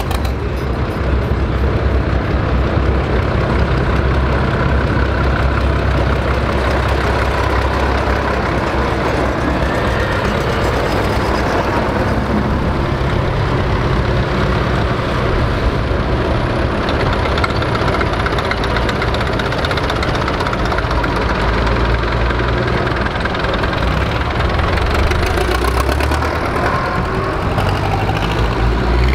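Vintage tractor engines running steadily as a column of old tractors drives slowly past.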